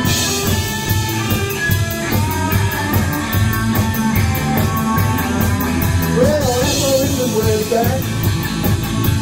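Rock band playing live: a drum kit with cymbals keeps a steady beat under electric guitar. A wavering melody line comes in about six seconds in.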